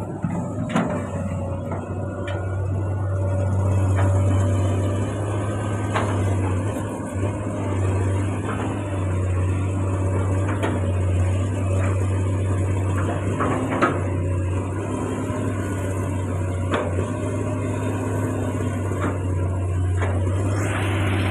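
Komatsu PC200 long-arm excavator's diesel engine running steadily under working load, with occasional sharp knocks.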